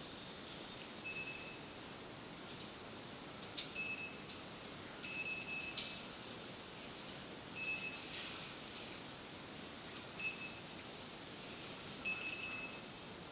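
Railway station card readers beeping as passengers tap their fare cards to pass the gates: several short, high beeps at irregular intervals of one to three seconds. A few sharp clicks fall among them.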